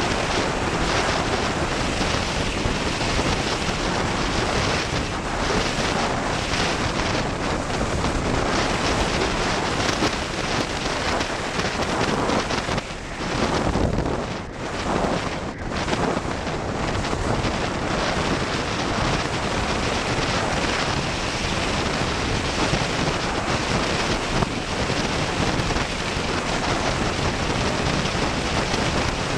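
Heavy wind noise buffeting the microphone of a handlebar-mounted camera on a fast downhill e-bike ride: a loud, steady rush. It drops and wavers for a few seconds about halfway through.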